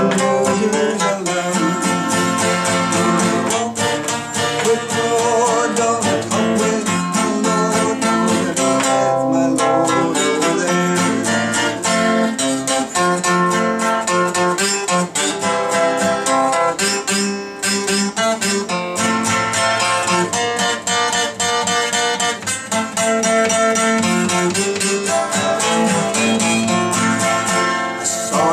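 Strummed acoustic guitar playing a gospel song, in a steady strumming rhythm.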